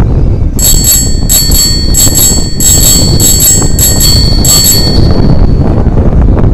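Bicycle bell rung repeatedly, about eight quick rings over four seconds, the last one ringing on briefly. Wind rumbles on the microphone of the moving bike throughout.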